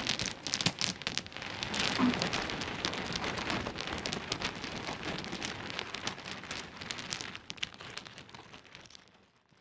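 Small pebbles clicking and rattling against each other in a dense, uneven stream of sharp clicks, fading out near the end.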